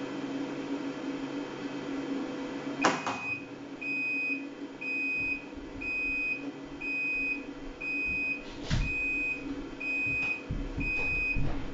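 Sharp ES-KS70K-P washing machine sounding an even series of short high beeps, about one a second, after a click about three seconds in: the signal that the wash cycle has finished. A second click falls partway through the beeping, over a low steady hum.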